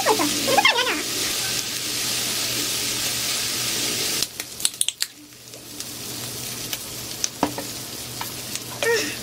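Pork belly sizzling on a tabletop grill pan: a steady hiss that drops off suddenly about four seconds in, then a few light clicks and a quieter sizzle that slowly builds back.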